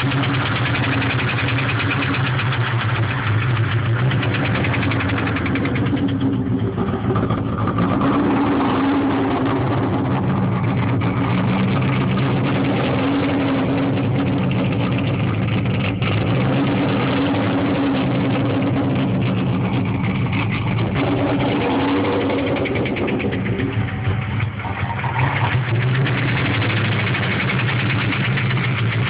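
1996 Mustang Cobra's 4.6-litre DOHC V8 with stage 2 cams idling with a knock, which the owner takes for rod knock.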